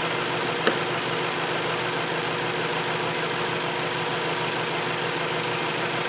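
A 2011 Dodge Avenger's 2.4-litre four-cylinder engine idling steadily with its cylinder 3 ignition coil unplugged, so it runs with a cylinder 3 misfire. A single short click sounds about two-thirds of a second in.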